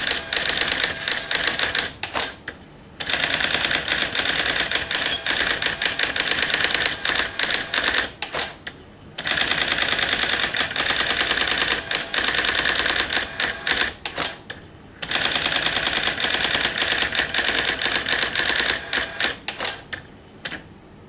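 Brother AX-20 electronic daisy-wheel typewriter printing characters in fast runs of strikes, several seconds at a time, with brief pauses between the runs.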